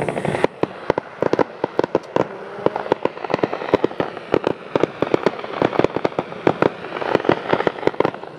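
Fireworks going off in a rapid, irregular barrage of sharp bangs and pops, about five a second, over a steady crackle, from low fan-shaped bursts of stars.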